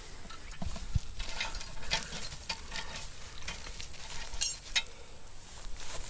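Cast-iron bean pot, heaped with hot coals and hung on a chain, being set down on the grass: a dull thump about a second in, then scattered light clicks and crackles from the coals and chain.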